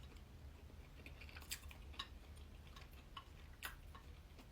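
Faint chewing of a cheese and pickle sandwich: a few soft, scattered mouth clicks over a low, quiet hum.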